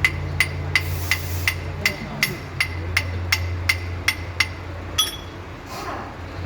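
A hammer striking metal in a steady run of about three blows a second, each with a short metallic ring, typical of knocking at a broken bolt to free it. The blows stop about four and a half seconds in, and a single last blow follows a moment later. A steady low hum runs underneath.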